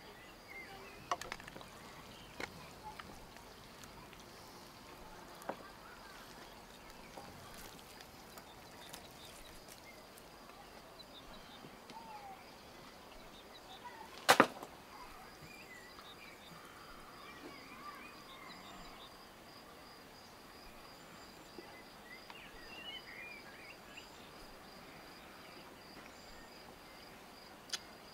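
Kitchen-knife blade clicking and knocking on a metal serving platter as baked fish is cut apart, with one sharp loud knock about halfway and a few lighter clicks early on and near the end. Faint bird chirps and a faint steady high buzz sit in the background.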